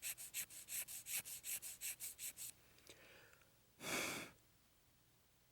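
Hobby file rasping back and forth on a plastic model-kit part, about five quick strokes a second, stopping about two and a half seconds in. About four seconds in comes a short exhale, the loudest sound.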